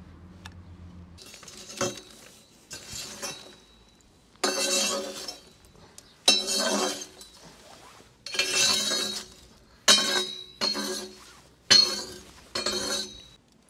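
A series of about eight clinks and scrapes on a glass or metal dish as food is handled in it. Each starts sharply with a faint ring and trails off in a short rustle, spaced about a second apart.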